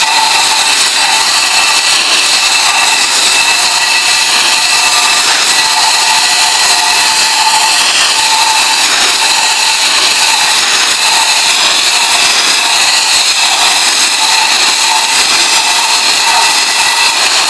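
High-pressure water jet hissing steadily from a hand-held nozzle as it blasts paint and rust off a steel box section. A faint wavering whistle runs under the hiss.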